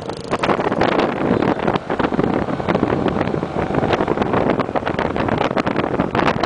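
Vehicle running with heavy wind buffeting on the microphone: a loud, continuous rush of noise with irregular crackles.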